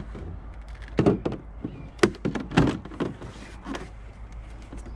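Several sharp plastic knocks and clunks as the RC catamaran's hull and polycarbonate canopy are handled and the canopy is taken off the hatch. The loudest come about one, two and two and a half seconds in, with a last one nearer four seconds.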